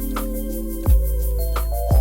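Background music: held keyboard chords over a heavy sustained bass, with a kick-drum beat about twice a second.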